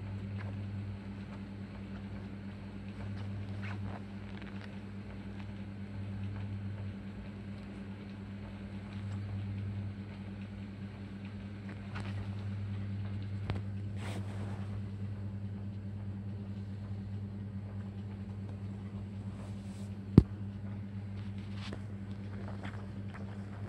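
Kittens play-fighting on a bedsheet: faint scuffling and soft rustles of fur and paws on fabric over a steady low electrical hum, with one sharp click about twenty seconds in.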